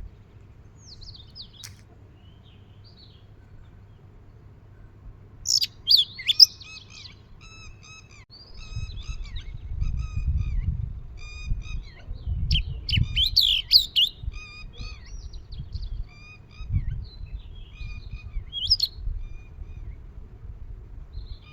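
Sparrows chirping: runs of short repeated cheeps, several a second, with sharper, louder calls about six seconds in and again around thirteen seconds. A low rumble sits underneath through the second half.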